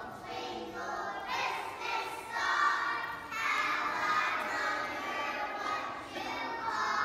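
A group of young children singing together, their voices holding notes and moving from phrase to phrase.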